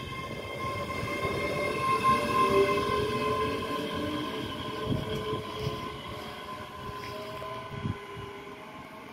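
ScotRail Class 385 electric multiple unit pulling away from the platform: a steady electric motor whine with several tones that slowly rise in pitch, over wheel rumble, gradually fading as the train moves off. Two short low knocks sound about five and eight seconds in.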